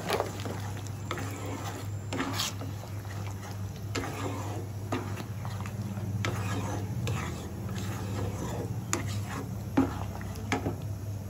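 Slotted spatula stirring a thick curry gravy in a kadai, with irregular scrapes and clicks against the pan over a steady low hum.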